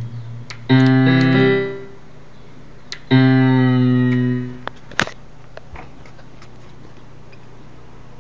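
Two held electric-piano-like notes from a computer's software synthesizer, played from a homebrew MIDI keyboard, each lasting about a second and a half and fading out. A sharp click follows about five seconds in, then a faint steady hiss.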